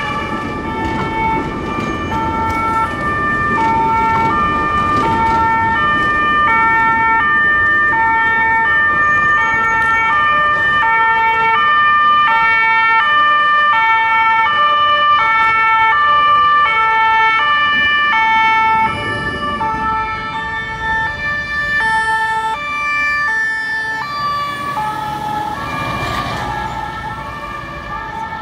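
Fire engines' two-tone sirens, alternating between a lower and a higher note about once a second, over a low rumble of engines and traffic. The sound drops somewhat in loudness about two-thirds of the way through.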